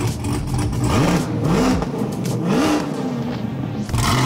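Chevrolet Corvette C8's V8 engine being revved several times in quick succession, the pitch climbing and dropping back with each blip of the throttle.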